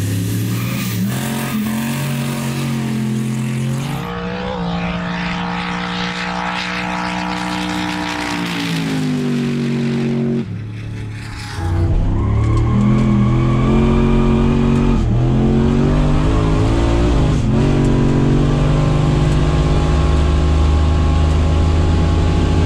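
Turbocharged 5.3-litre iron-block V8 of a Holden VY Clubsport revving and running hard down a drag strip, its pitch rising and falling through several edits. From just past halfway it is heard inside the cabin, a steady high-rev engine sound with a higher whine rising over it.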